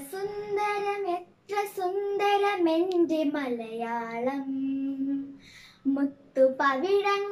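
A young girl singing a Malayalam poem solo, with no accompaniment, in phrases of long held notes, one held for nearly two seconds in the middle.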